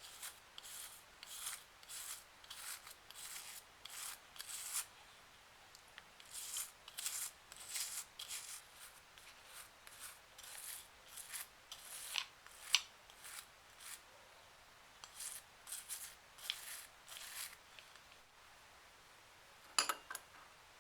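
Runs of short hand rubbing strokes on a surface, about two a second, pausing now and then, with a brief clatter of sharper clicks near the end.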